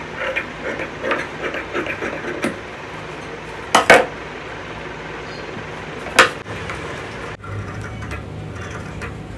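Large tailor's shears snipping through fabric in a quick, irregular run of cuts. Then come a few sharp knocks, the loudest about four seconds in and another about six seconds in.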